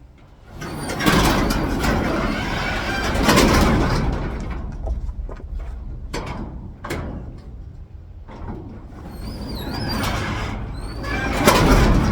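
Garage door rattling and banging as it is tugged upward while the newly installed door lock holds it shut, with a few sharp knocks in the middle.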